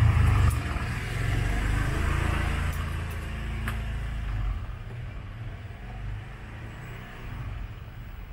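Key-duplicating machine running: a steady motor hum with the cutter grinding into a key blank. It is loudest for the first four and a half seconds, then drops to a quieter run.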